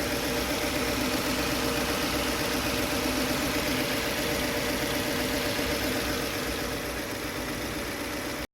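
Subaru Impreza G4's flat-four engine idling steadily, with a fast, even pulsing. The sound cuts off abruptly near the end.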